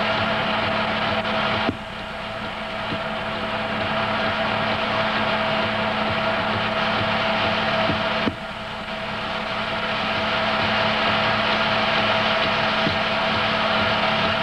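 Film projector running: a steady mechanical whir with a low hum. A click comes at about two seconds and again at about eight seconds; each time the noise drops suddenly and then slowly builds back up.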